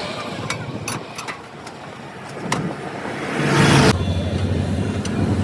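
A few sharp clicks, then about three and a half seconds in a motor vehicle's engine comes up and runs with a steady low hum.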